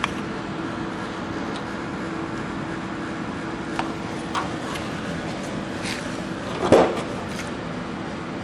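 A steady low hum with a few faint clicks and one louder clatter about two-thirds of the way through, as the opened power supply board is handled.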